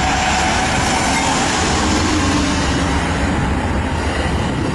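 Amtrak passenger train rolling past close by as it slows to stop at the station: a steady rumble and rush of the locomotive and cars, with a faint wheel squeal.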